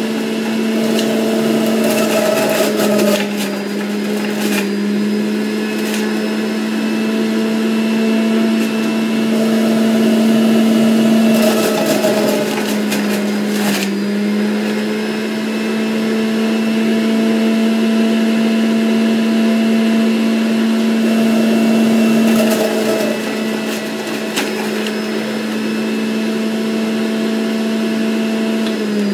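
Electric centrifugal juicer running loudly with a steady motor whine while fruit is pushed down the chute into the spinning cutter, with crackling as the fruit is shredded. Its pitch sags briefly a couple of times as it takes the load, and right at the end the pitch starts to fall as the motor winds down.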